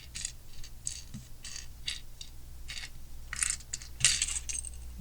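Small plastic Lego pieces clicking and rattling against each other as a hand sorts through them, with a louder clatter of several clicks about three and a half to four and a half seconds in.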